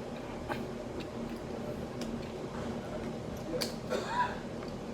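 Room tone of a busy shop: a steady low hum with faint distant voices near the end and a few light clicks.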